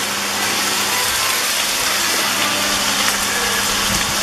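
Pork sizzling in a frying pan: a steady hiss, with a low steady hum underneath.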